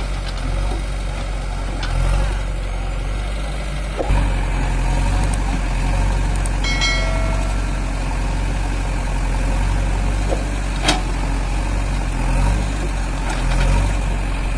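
Diesel engines of an Eicher 551 tractor and a JCB backhoe loader running at idle, a steady low drone. A sharp knock comes about four seconds in and another about eleven seconds in, with a short pitched tone near seven seconds.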